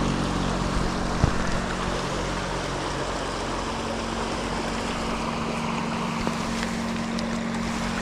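Steady rush of a fast mountain stream flowing over rocks, with a brief knock about a second in.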